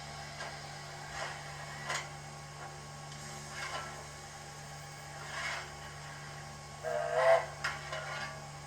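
Sound decoder of a model Victorian Railways K class steam locomotive playing steam sounds through its speaker: short hissing puffs about every two seconds over a steady hum. A brief pitched sound about seven seconds in is the loudest moment.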